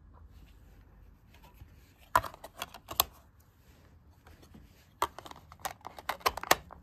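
Clear plastic Blu-ray case and disc being handled: a quick cluster of sharp plastic clicks and rattles about two seconds in, then a longer run of clicks from about five seconds in.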